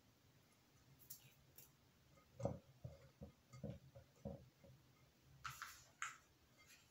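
Faint light knocks and clicks of small objects handled on a countertop, then two brief scraping sounds near the end as a hot glue gun is picked up.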